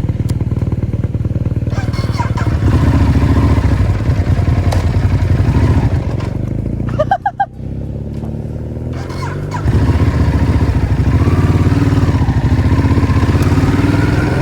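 Ducati Hypermotard's L-twin engine with stock exhaust running as the bike is ridden, pulling harder about two and a half seconds in, easing off briefly about seven seconds in, then pulling hard again.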